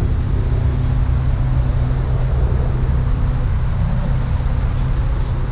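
Steady low mechanical drone, an engine or machine running evenly, with no change in pitch.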